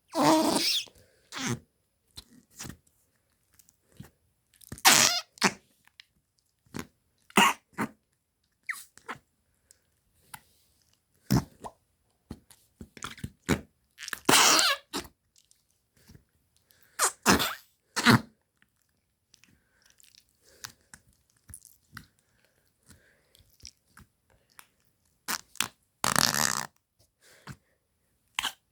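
A series of fart sounds: a dozen or so separate bursts at irregular intervals with silence between them, each lasting from a fraction of a second to about a second.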